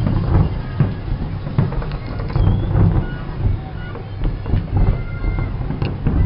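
Fireworks display bursting in quick succession: a dense run of booms and sharp cracks, with short whistling tones among them.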